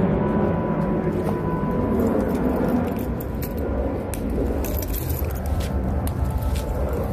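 Steady low rumble in the background, with light brittle clicks and crunches from about four seconds in as quail eggs are handled and puppies chew them shell and all.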